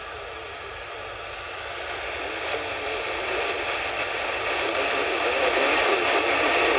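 Radio static hiss from a receiver tuned to a weak or empty signal, growing steadily louder.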